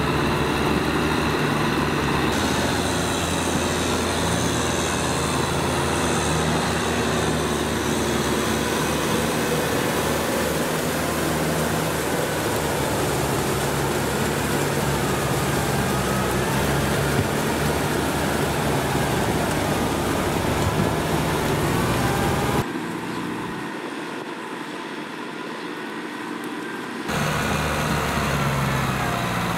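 Kubota M6040SU tractor's diesel engine running steadily under load while it pulls a rotary tiller through wet paddy mud. Near the end the sound turns quieter and duller for about four seconds, then returns.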